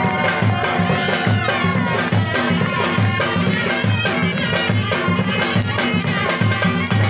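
Live Chitrali folk dance music: a reedy shawm (surnai) plays a wavering, gliding melody over a steady beat on a large double-headed drum (dhol).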